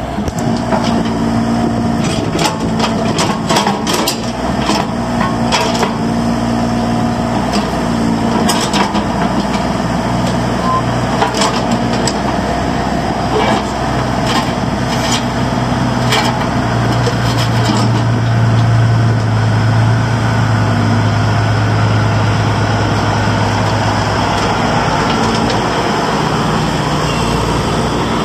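Bobcat E32i mini excavator's diesel engine running with its hydraulics working the boom and arm, with repeated sharp metallic clanks and knocks through the first half. The engine's low hum swells louder from the middle to near the end as the hydraulics are put under load.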